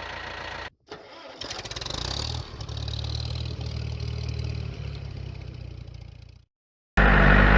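Tractor engine starting and building up over about a second, then running steadily, broken by two short silent gaps, with a louder stretch of engine noise near the end.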